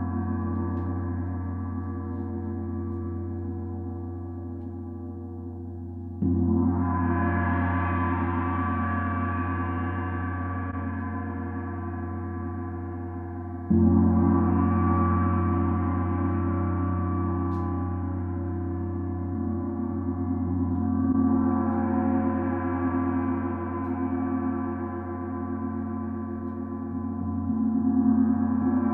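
28-inch Oetken Sedna planetary gong, tuned to 181.6 Hz (F#2), played with a soft fluffy mallet: it rings long and fades slowly, with fresh strokes about six and fourteen seconds in. In the later part gentler repeated playing makes the sound swell and ebb in waves.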